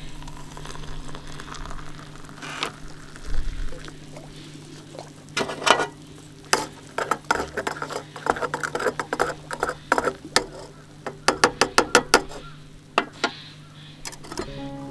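Hot water is poured from a kettle into a metal camping mug. Then a wooden spoon stirs instant coffee in the mug, knocking against the mug's metal sides in a run of sharp taps that come quick and regular near the end.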